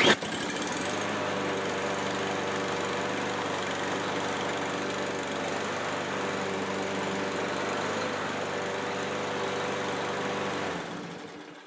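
Brute push mower's single-cylinder Briggs & Stratton gas engine running steadily at a constant speed, just started on the first pull after a spring tune-up with fresh fuel and a new air filter. Near the end it is shut off and runs down to a stop.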